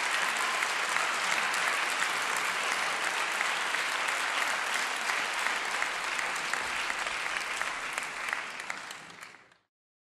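Audience applauding steadily in a theatre, a dense patter of many hands clapping, which fades out near the end.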